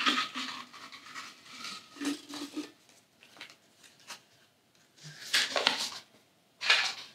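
Folded paper slips rustling in bursts as they are rummaged for, drawn out of a box and unfolded.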